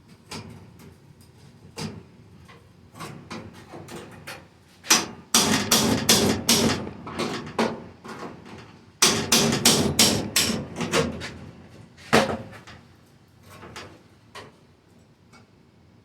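Hammer blows on the Jeep CJ7's sheet-steel body panel: scattered single strikes, then two loud runs of rapid blows in the middle, and one more hard strike after them.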